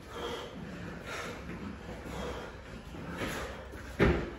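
A person exercising hard during burpees: soft, heavy breaths about once a second, then a loud thud about four seconds in as hands slap down onto the rubber floor mat at the start of the burpee.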